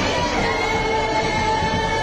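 Music with long held notes that step from one pitch to the next, over the dense noise of a large crowd.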